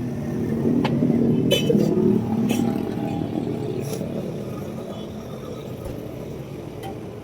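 A motorcycle engine running. It grows louder over the first couple of seconds and then slowly fades, with a few light clicks over it.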